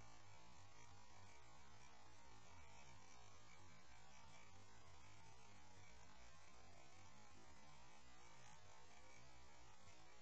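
Near silence: a faint, steady hiss with a low hum underneath, with nothing else standing out.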